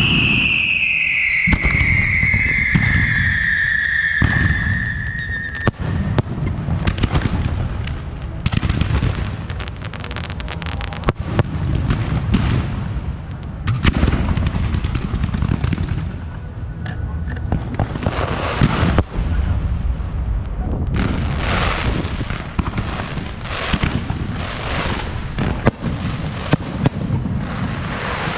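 Fireworks and firecrackers going off: a dense run of rapid crackling and bangs, with a long falling whistle over the first five or six seconds.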